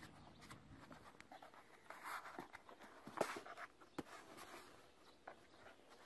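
Faint scratching and scuffling of a puppy and a kitten play-fighting in a shallow tray, their paws and claws scrabbling against its surface, with scrapes about two and three seconds in and a light tick about four seconds in.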